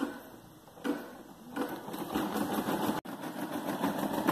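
Brother PE460LDV embroidery machine stitching. It opens with two sharp knocks about a second apart, then from about a second and a half in the needle runs fast in a steady, rapid rhythm, broken off for an instant about three seconds in.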